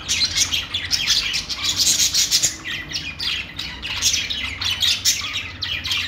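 A group of caged budgerigars chirping and chattering: many quick, high, overlapping chirps and warbles with no pause.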